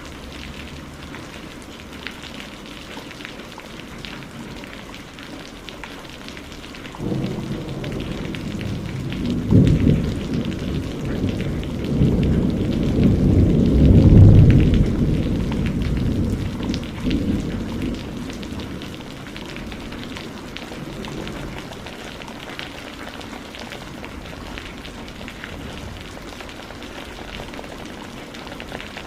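Steady rain falling, with a patter of many small drop ticks. About a quarter of the way in a low rumble of thunder begins, swells to a peak near the middle and fades out over the next few seconds, leaving the rain alone again.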